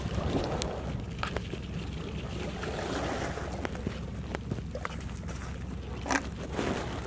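Wind rumbling on the microphone, with a few short crackles from a crumpled plastic snack packet being handled; the sharpest comes about six seconds in.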